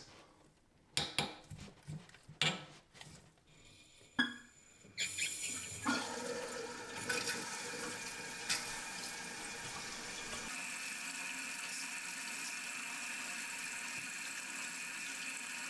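A few light knocks as the toilet's wall shutoff valve is handled and opened. About five seconds in, a steady hiss of water starts running through the fill valve into the empty toilet tank as it refills.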